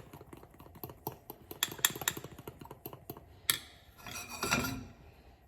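Pancake mix being stirred by hand in a bowl: a utensil taps and clicks rapidly against the bowl, with a sharp knock about three and a half seconds in and a louder scraping stir just after, stopping near the end.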